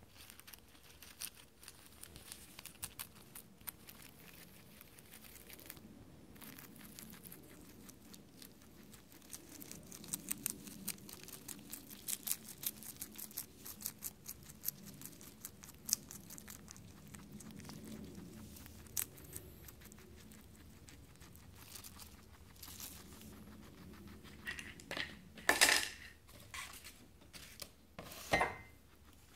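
Guinea pig biting and chewing crisp lettuce leaves close to the microphone: a steady run of small crunches and leaf tearing, with two louder bursts near the end.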